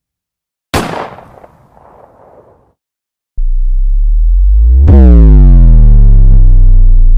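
A single gunshot sound effect a little under a second in, its tail dying away over about two seconds. After a short silence a loud, deep electronic tone follows, its overtones gliding in pitch.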